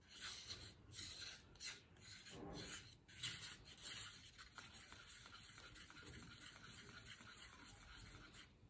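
Faint scraping of a stirring stick against the inside of a paper cup as black-pigmented epoxy resin is mixed, in irregular strokes that are most distinct in the first few seconds and then fade to a faint rubbing.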